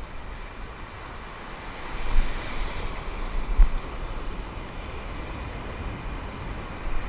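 Shallow surf washing and foaming around the legs of someone standing in the sea, with wind buffeting the microphone in gusts. The wash swells up about two seconds in.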